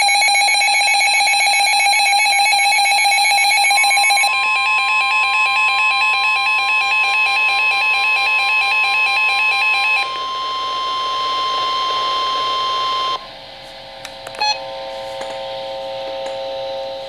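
Weather alert radio sounding a severe thunderstorm warning alert. Rapid, pulsing electronic alarm beeps are joined about four seconds in by the long steady weather-radio warning tone, which cuts off suddenly about thirteen seconds in. After it come quieter steady tones and a few clicks.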